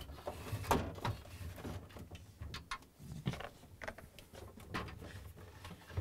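Refrigerator crisper-drawer cover being slid out of its shelf rails by hand, with scattered light plastic clicks, knocks and scrapes.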